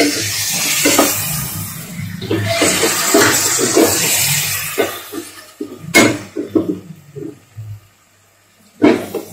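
Chicken stock poured from a bowl into a hot pan of frying chicken, hissing as it hits the oil, while a wooden spatula scrapes and stirs the pan. A sharp knock comes about six seconds in, and the hiss dies down toward the end.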